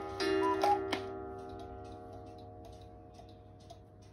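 Hand-carved Black Forest cuckoo clock sounding its last two-note cuckoo call over a ringing gong about a second in. The ringing then dies away over the steady ticking of the movement.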